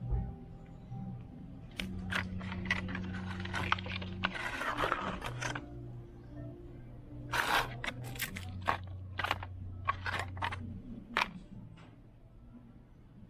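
Bursts of scraping and clicking handling noises, in two clusters, over quiet background music with held low notes.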